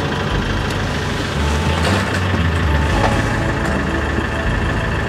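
Motorhome engine idling steadily, heard from inside the cab.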